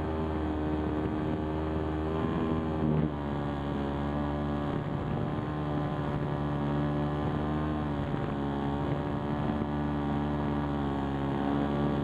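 An RC model aeroplane's motor and propeller running under power, heard from on board. The pitch steps down after a brief louder moment about three seconds in, then holds steady.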